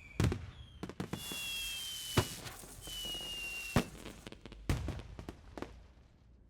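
Fireworks going off: several sharp bangs with crackle, and high whistles that fall slightly in pitch, dying away near the end.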